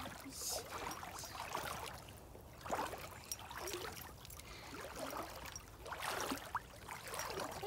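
Feet wading through floodwater: irregular sloshing and splashing steps.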